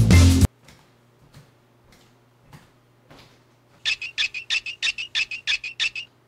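Background music cuts off suddenly about half a second in. After a few faint clicks, a rapid run of about fourteen short, high-pitched, bird-like chirps follows, about six a second, stopping just before the end.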